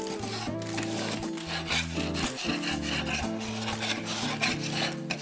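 Metal putty knife scraping loose, scorched paint off a wall in repeated rasping strokes, with background music underneath.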